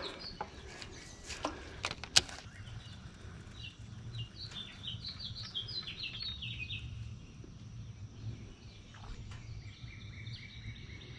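A bird singing a run of short, quick, falling chirps for several seconds, over a low steady hum. A few sharp clicks come in the first couple of seconds, the loudest about two seconds in.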